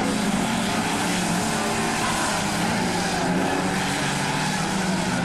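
Several banger racing cars' engines running together on the track, their notes rising and falling as the cars accelerate through the bend.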